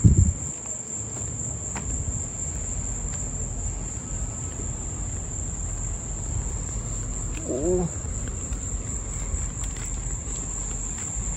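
Insects singing in one steady, high-pitched drone over a low rumble, with a thump at the very start and a brief voice about seven and a half seconds in.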